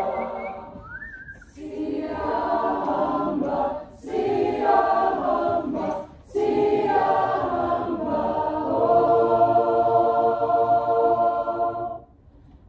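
Choir singing unaccompanied in several phrases, with short breaks about a second, four seconds and six seconds in. It ends on a long held chord that cuts off sharply just before the end.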